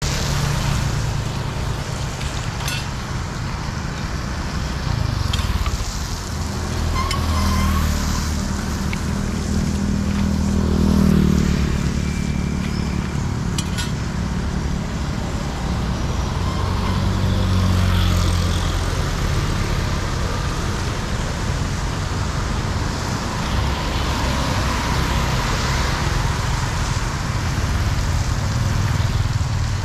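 Low, steady motor-vehicle rumble that swells a few times, loudest about eleven seconds in, with a couple of faint clicks.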